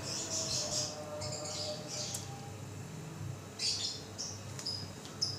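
Pot of water at a rolling boil as pieces of beef shank go in for a first parboil: faint crackly bubbling with a few soft splashes.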